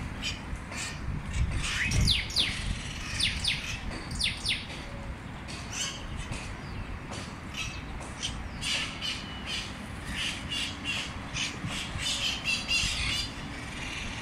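A flock of small green parrots calling: many short, harsh squawks overlapping, coming thickest in the second half.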